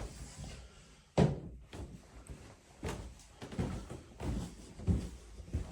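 A sharp, loud thud about a second in, followed by a run of softer, irregular thumps and knocks.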